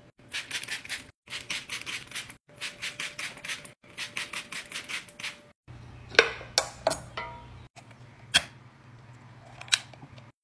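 Trigger spray bottle of Febreze fabric spray pumped in quick runs of short hissing sprays, several a second, with brief pauses between runs. Then a few sharp clicks and knocks from the wooden lid of a glass candle jar being handled.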